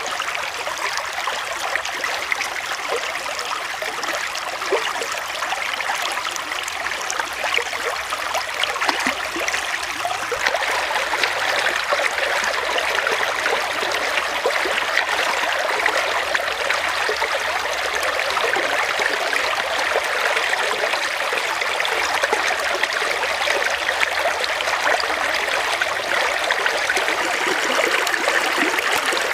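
Shallow stream water running and trickling over rocks: a steady rush with small splashes, slightly fuller after about ten seconds.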